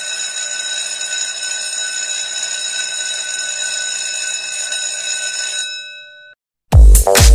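An electric school bell ringing steadily, a rattling ring with several fixed tones, fading out about six seconds in. Loud dance-pop music with a heavy beat cuts in near the end.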